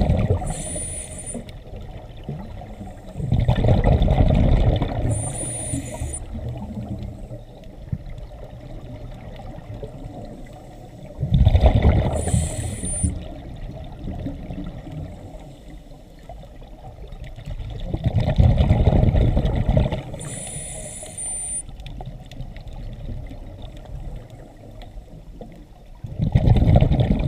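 A scuba diver breathing through a regulator underwater. Exhaled bubbles rumble and gurgle in loud bursts about every seven seconds, each with a short high hiss beside it, and a quieter wash of water lies between them.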